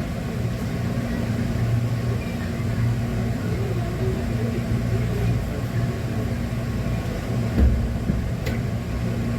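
Steady low hum and rumble inside a Hankyu electric train car, with a single low thump about seven and a half seconds in.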